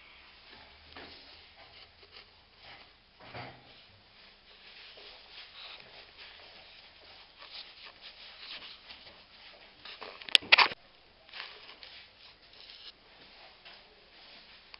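Scattered rustling and scuffing of handheld movement, with a sharp clatter about ten seconds in.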